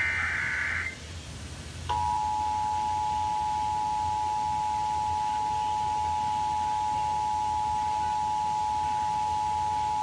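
Emergency Alert System test played through an FM radio: the last one-second burst of the digital SAME header data, then about two seconds in the EAS attention signal, a steady two-tone 853 and 960 Hz tone.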